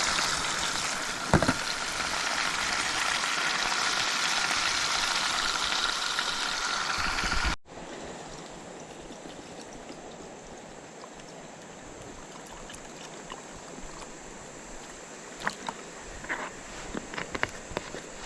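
Water of a small forest river rushing steadily, cutting off abruptly about halfway through to a quieter steady hiss with a faint high whine. A few light knocks near the end.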